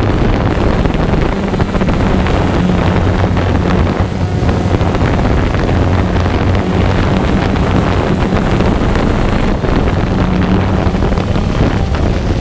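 Quadcopter drone's electric motors and propellers running steadily, a loud buzzing hum with heavy propeller-wash noise on the drone's own microphone, as it comes down toward the ground.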